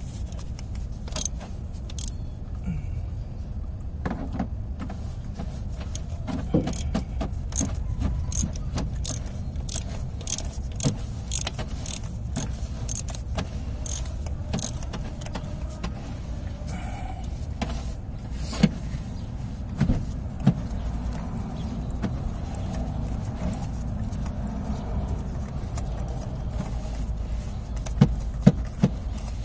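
Hand ratchet clicking in short, regular strokes, about two clicks a second, as a spark plug is worked loose from a 2004 Honda Odyssey's 3.5 V6. Later come metal tool clinks and a few sharp knocks, over a steady low rumble.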